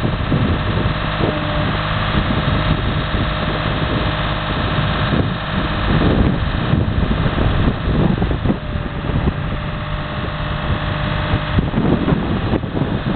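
Reed harvester's engine running steadily, with wind buffeting the microphone.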